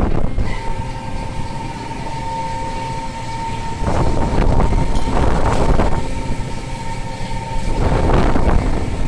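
A fishing boat's machinery running with a steady deep rumble and a constant whine, with two louder rushing surges of noise about four and eight seconds in.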